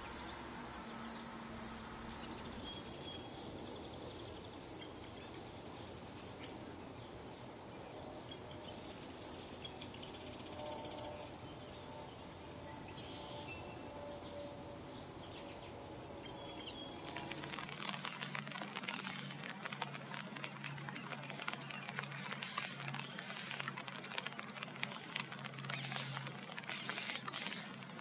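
Small birds chirping faintly now and then over a soft background. About eighteen seconds in this changes abruptly to a dense patter of rain falling on water and mud, with a low steady hum beneath.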